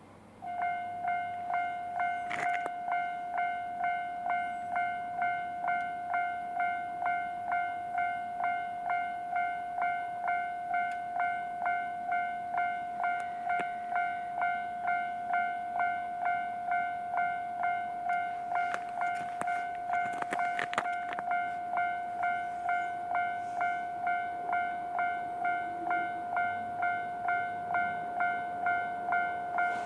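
Japanese railway level-crossing warning bell ringing in even, steady strokes a little under two a second, starting about half a second in: the crossing signal sounding for an approaching train.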